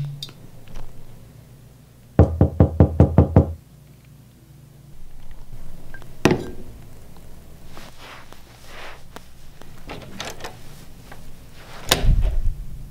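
Rapid knocking, about eight sharp knocks in a second and a half, followed by scattered light clicks and handling noises and a heavier thump near the end.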